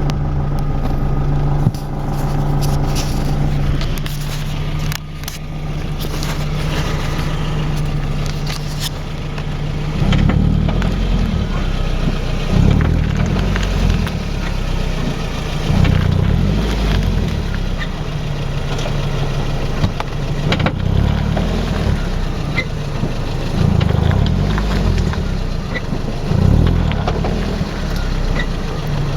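Nissan S14 (240SX/Silvia) with a grinding noise from the driver-side rear wheel area. A steady hum for about the first ten seconds gives way to an uneven low rumble that swells and fades every couple of seconds.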